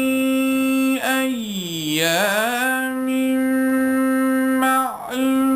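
Male reciter chanting a Quranic verse in melodic tajweed style, stretching the words out in long held notes. About a second in his voice glides slowly down and back up to the held pitch, and it breaks briefly near the end before another long note.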